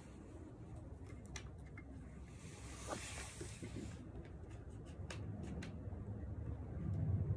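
Faint rustling with scattered small clicks as an Arai full-face racing helmet is worked down over the head by hand, its shell and padding rubbing on hair and jacket.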